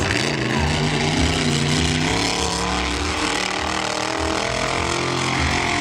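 Monster truck engine running loudly at steady revs, with a brief change in revs at the start.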